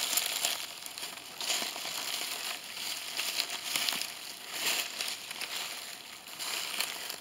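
Footsteps crunching through dry fallen leaves and twigs on the forest floor, at a walking pace.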